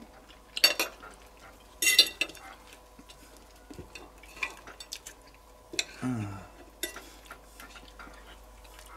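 Knife and fork scraping and clinking on plates as grilled steak is cut, with the two loudest scrapes in the first two seconds. A short low sound falling in pitch comes about six seconds in.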